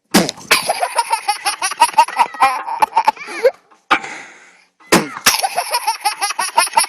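A baby laughing hard in two long fits of rapid, pulsing chuckles, with a pause for breath about four seconds in.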